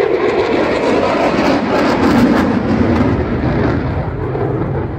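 An aircraft flying past overhead, its engine noise swelling to its loudest a little after two seconds in and then easing off.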